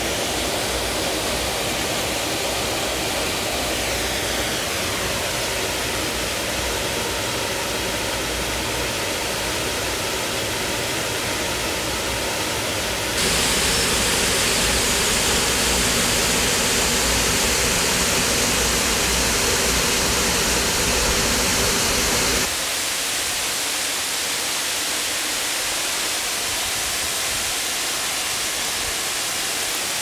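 Waterfall pouring into a rock pool: a steady, even rush of falling water. It turns abruptly louder and hissier about thirteen seconds in, then drops back with less low rumble about nine seconds later.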